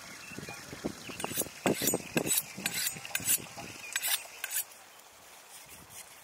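Kitchen knife cutting raw lamb on a wooden cutting board: a run of irregular sharp knocks and scrapes of the blade against the board, which stops about four and a half seconds in.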